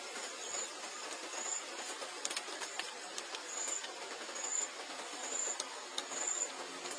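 A baby monkey eating a banana, with scattered soft clicks and smacks from its mouth. Behind this, over a steady hiss, a short high insect-like chirp repeats about once a second.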